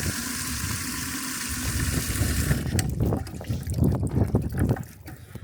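Blizzard wind gusting over the microphone: a steady hiss that cuts off about halfway, then uneven low buffeting rumbles that die down near the end.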